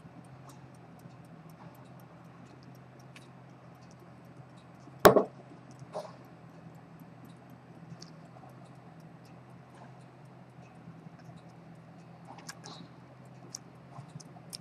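Small clicks and taps of work at a watch repair bench, with one sharp knock about five seconds in and a softer one a second later, over a low steady hum.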